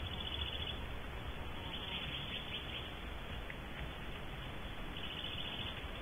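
Faint, high, rapid chittering calls from newly hatched barn owl chicks in the nest box, heard in three short bouts (at the start, about two seconds in, and near the end), over a steady low hum.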